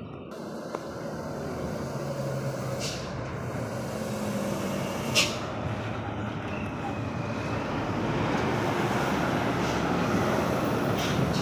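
Heavy trucks driving past with engine hum and road noise, growing louder toward the end, with a short hiss about five seconds in.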